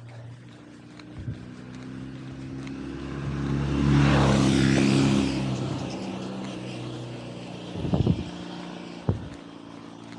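A motor vehicle passes by, its engine and tyre noise growing louder to a peak about four to five seconds in and then fading away. A few sharp knocks follow near the end.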